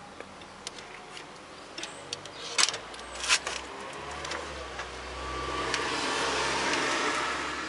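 A few sharp clicks, then a 1989 Mini's 998 cc A-series engine turning over on the starter for about three seconds without catching. It will not start, and has not since a new coil and electronic distributor were fitted.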